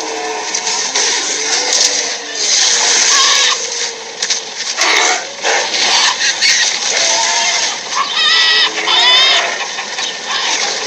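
Stampede sound effect: a continuous noisy rush with animal-like calls over it, including warbling, wavering cries near the end.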